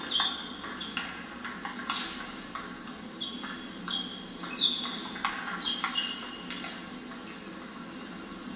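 Table tennis rally: the ball clicking off bats and the table at an irregular, fast pace, with several short high squeaks of shoes on the sports-hall floor. The clicks stop about seven seconds in as the rally ends.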